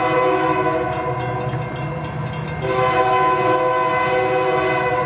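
Locomotive air horn sounding for a grade crossing as a train approaches. A steady blast eases off a little before two seconds in, and a second long blast starts a little under three seconds in.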